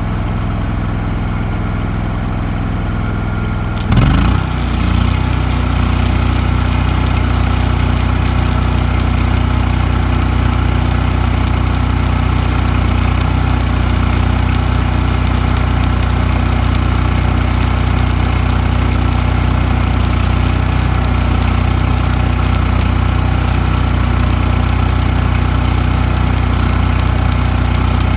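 Engine-driven welder's engine running, then a stick-welding arc strikes about 4 s in: a steady crackling hiss from the arc over the engine, which takes the load with a stronger, evenly pulsing drone.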